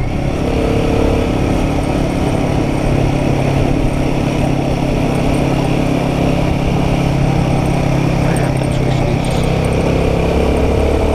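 Royal Enfield Guerrilla 450's single-cylinder engine running steadily while the motorcycle is ridden along the road, its note shifting near the end.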